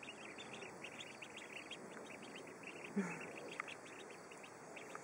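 A brood of one-week-old Khaki Campbell ducklings peeping softly, a constant run of quick, short high peeps, with one brief louder sound about three seconds in.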